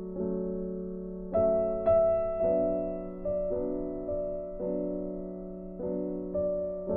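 Background music: slow, gentle piano chords, a new chord about every second, with the loudest notes about one and a half and two seconds in.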